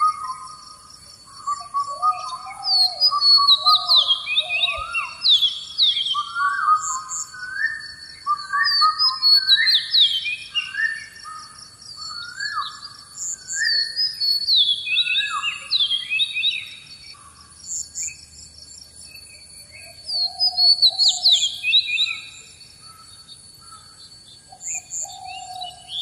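Several birds singing, repeating short falling whistled notes in overlapping bouts with brief pauses between them. A steady faint high-pitched trill runs underneath.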